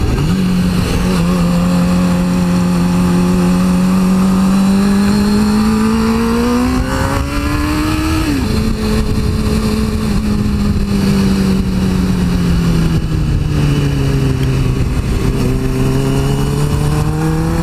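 2002 Suzuki GSX-R600's inline-four engine heard from on board while riding: the revs climb steadily for several seconds and drop sharply at an upshift about eight seconds in. The revs then sag as the throttle eases and climb again near the end, with wind rushing over the microphone.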